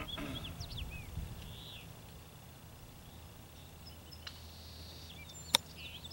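A golf wedge striking a ball on a chip shot: a single sharp click about five and a half seconds in. Birds chirp in the background.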